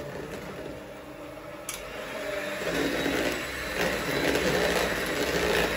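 Electric hand mixer running, its beaters churning a thick batter of walnuts, coconut and breadcrumbs in a plastic bowl; the sound grows louder about two seconds in and then holds steady.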